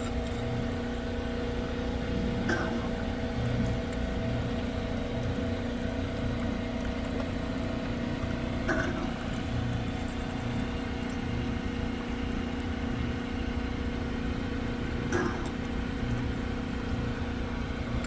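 Dewatering pump's engine running steadily, a constant hum with a low pulsing rumble underneath. A few faint clicks come about every six seconds.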